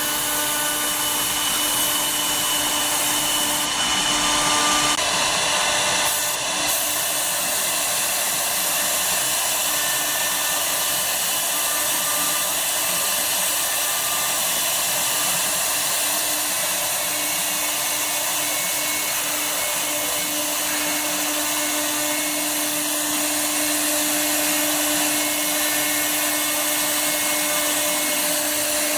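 CNC router spindle running steadily while machining wood: a steady whine over a wide rushing hiss, a little louder about four to six seconds in.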